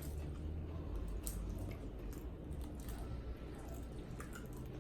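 Chewing and wet mouth sounds of people eating boiled shrimp, with scattered soft clicks over a steady low hum.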